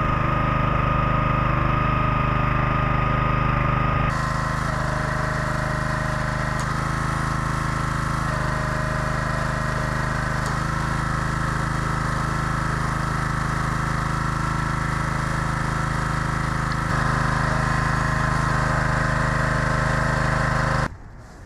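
Small engine of a wood splitter running steadily, its note shifting slightly a couple of times. It cuts off abruptly near the end.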